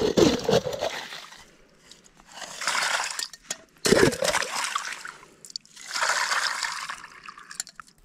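Water being scooped from a hole in lake ice with a small pot, twice: each dip gurgles and sloshes as the pot fills, followed by a second or so of water pouring into a larger pot.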